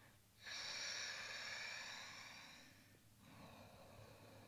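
A person breathing deeply into the microphone: one long breath starting about half a second in and fading over about two seconds, then a fainter breath.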